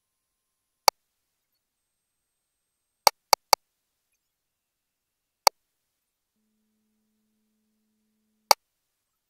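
Six short, sharp, identical clicks with silence between, three of them in a quick run about three seconds in: button clicks from a GE Voluson E10 ultrasound's control panel as its imaging settings are changed and it is switched into 4D HD Live mode.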